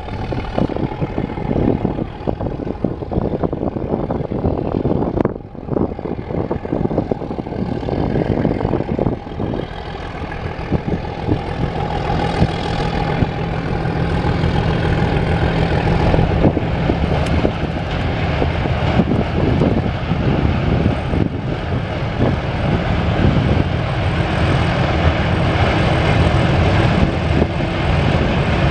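Metre-gauge train running, with wheel-and-track clatter and rumble; from about a third of the way in, a steady locomotive engine drone grows louder.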